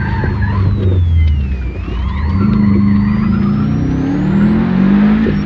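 Rally car engine heard from inside the cabin, its revs dropping as the car slows for a tight cone turn, then climbing as it accelerates out. A thin high whine falls and rises along with the engine.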